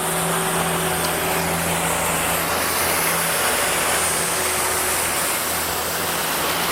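Broom Badger construction-site sweeper going by: its engine runs steadily under a broad, loud hiss.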